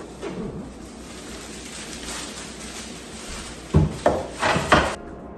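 A package being opened by hand: quiet rustling of the wrapping, then a few loud crinkles and rips in quick succession near the end.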